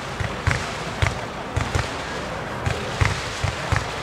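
Roman-candle bundle (Röder 'Wirrwarr' Lichterbündel) firing its stars, about nine short launch pops at an uneven pace.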